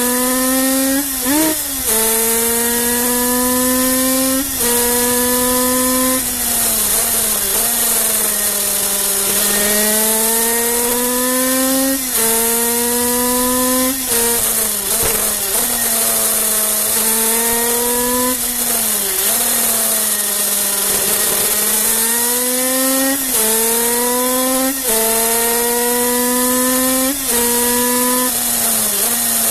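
Kreidler 50cc two-stroke racing motorcycle engine at high revs, heard from on the bike. Its pitch climbs steadily through each gear and drops sharply at every upshift, with a slower dip and climb twice where it slows for corners. Wind rushes over the microphone.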